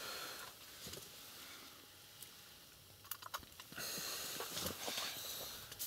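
Quiet handling noises: a few small sharp clicks about three seconds in, then a soft rustling hiss, as hands work among the bait tub, the plastic bag and the ice rods.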